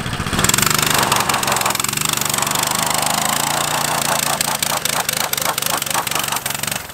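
Coleman CT200U EX mini bike's small single-cylinder engine revved hard about half a second in and held at high revs, rising and falling, with a hiss from the rear tire spinning on the pavement in a burnout to warm the tire. The revs drop near the end.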